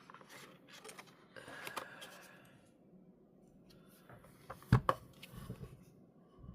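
Hands handling a small camera's box and packaging: scattered light clicks and taps, a short rustle about one and a half seconds in, and a sharp knock just under five seconds in as something is set down or bumped.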